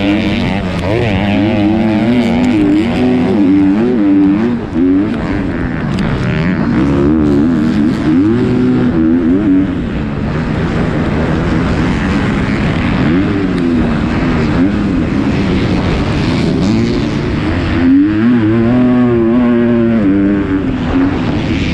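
Onboard sound of a 250cc four-stroke motocross bike racing: the engine revs up and drops back again and again through the gears and over the track, under a steady rush of wind and track noise.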